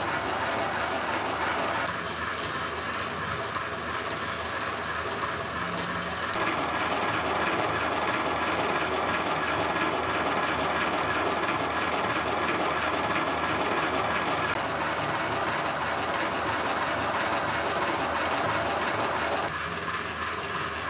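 Milling machine running with a hobbing attachment, cutting a spur gear: a steady machine noise with a constant high whine. The sound shifts in level and character a few times.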